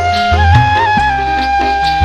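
Instrumental section of a song: a high melody line held long with small turns and trills, over steady bass and regular drum hits.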